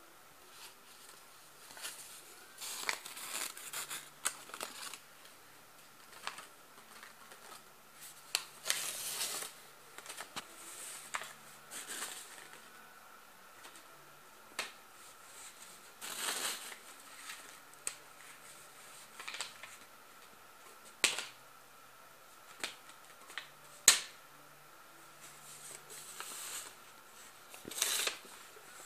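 Paper being handled close by: irregular short rustles with a few sharp clicks, between stretches of quiet room tone.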